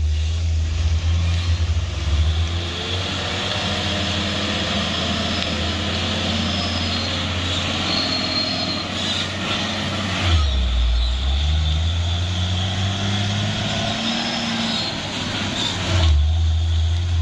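Heavy truck's diesel engine running under load. Its pitch dips about ten seconds in, then climbs steadily for several seconds as it revs up.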